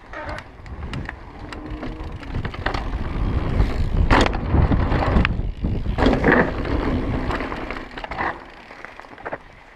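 Mountain bike riding fast down a dirt trail: rumble of knobbly tyres on packed dirt with wind buffeting the on-board camera's microphone, and sharp rattles and knocks from the bike over bumps, loudest in the middle.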